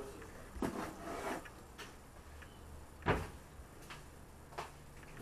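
Handling noise: a few short, light knocks and taps as fingers work a smartwatch and brush the boat's hull, the loudest about three seconds in.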